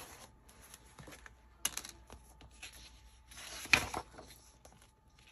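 Sheets of paper being handled and shuffled: soft scattered rustles and ticks, with a louder rustle about three and a half seconds in.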